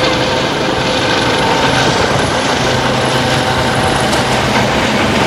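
Helicopter climbing away overhead after take-off: a loud, steady rotor beat with a steady engine whine over it.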